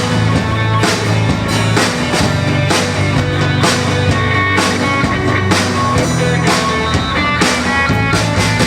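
Rock band playing an instrumental passage between sung lines: drum kit keeping a steady beat over guitar and bass.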